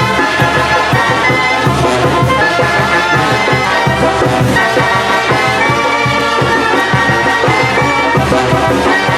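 Brass wind band (banda de viento) playing an instrumental tune: a held brass melody over a steady, pulsing low beat.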